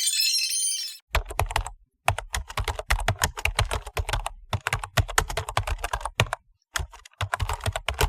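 Typing on a computer keyboard: rapid runs of keystroke clicks with short pauses between them.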